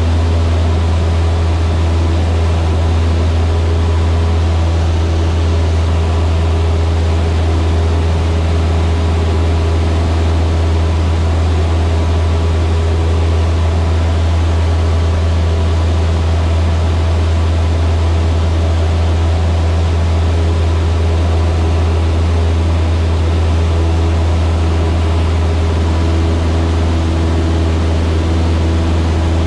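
Cessna 152's four-cylinder Lycoming engine and propeller droning steadily, heard from inside the cockpit.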